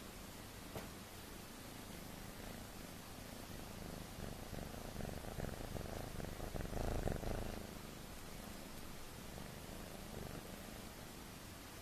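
Kitten purring steadily, a fine rapid pulsing. It swells from about four seconds in, is loudest around seven seconds, then settles back to a quieter purr.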